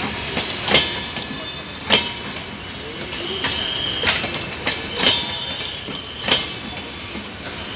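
LHB passenger coaches rolling past on the track, their wheels knocking over rail joints and points in sharp, unevenly spaced clacks over a steady rumble. There is a brief high wheel squeal near the middle.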